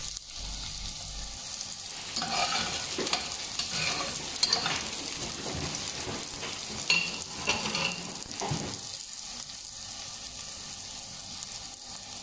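Chopped garlic and onion sizzling in hot oil in a pot, with a slotted spatula stirring and scraping against the pot from about two seconds in until about nine seconds; after that only the sizzle goes on.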